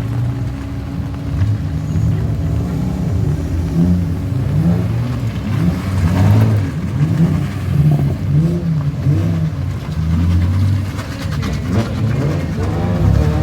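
Car engine revving hard, its pitch rising and falling over and over as the throttle is worked on and off.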